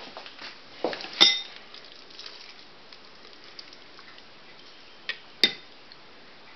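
Blender jar and utensil knocking and clinking against a ceramic mixing bowl while thick tuna salad is scraped out into it. There are sharp, briefly ringing clinks about a second in and again near five seconds, with soft scraping and tapping between.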